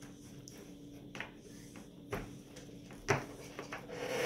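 A few light wooden knocks and clacks as wooden puzzle pieces are tapped and pushed against a wooden puzzle board on a table, spaced about a second apart, the loudest about three seconds in.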